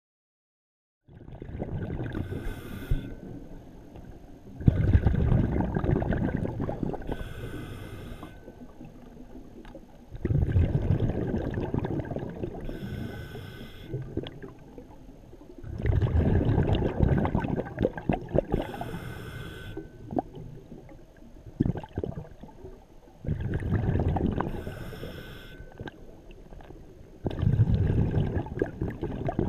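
Scuba diver breathing through a regulator underwater: a short hiss on each inhale, then a louder rush of exhaled bubbles that fades, repeating about every five to six seconds. The sound starts about a second in.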